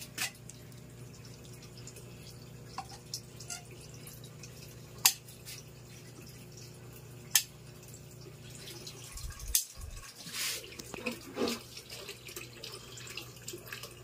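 Handling sounds from a caulking gun loaded with a silicone tube and a narrow glass strip: a few sharp single clicks, then a cluster of light knocks and rustles in the last few seconds, over a steady low hum.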